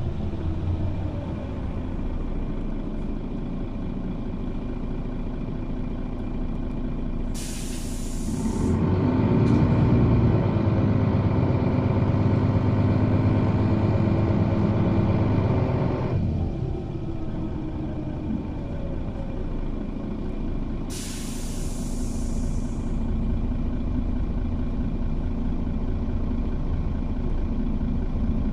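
Bus engine running, heard from inside the passenger cabin, with two short sharp hisses of compressed air from the air brake system, about seven seconds in and again about 21 seconds in. After the first hiss the engine runs louder for several seconds as the bus pulls, then eases off.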